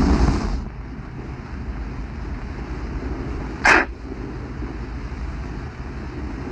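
Steady low rumble of outdoor background noise, wind on the microphone, with one short loud whoosh about three and a half seconds in.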